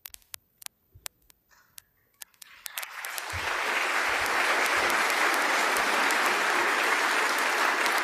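Audience applauding: a few scattered claps at first, then full applause from about three seconds in, holding steady.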